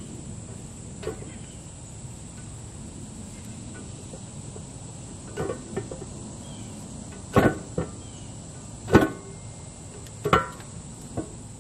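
Seal removal tool prying at the pinion seal in a Dana 60 axle housing: several sharp metal clinks in the second half, each with a short ring, the loudest about seven and nine seconds in. The seal is stuck and not coming out easily.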